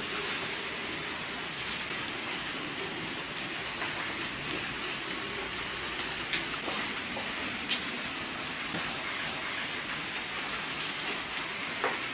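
Steady hiss of outdoor night ambience with a thin, high, even tone running through it. A few faint clicks break it, the sharpest one a little past halfway.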